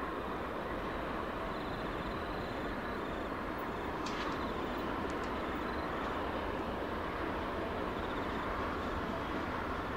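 Diesel-electric locomotives of a G-class and XR-class pair running as they haul a loaded-out grain train toward the listener at low speed, a steady engine noise with no change in pitch.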